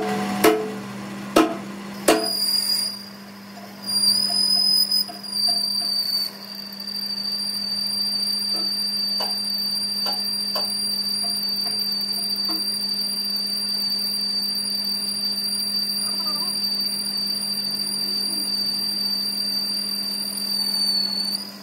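Metal lathe turning a metal workpiece, the cutting tool taking a cut: a steady low motor hum with a steady high-pitched whine over it. A few sharp clicks come in the first two seconds.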